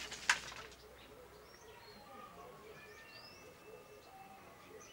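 Birds calling in the background: thin whistled notes, some gliding upward, over a low repeated call, with a brief sharp sound about a third of a second in.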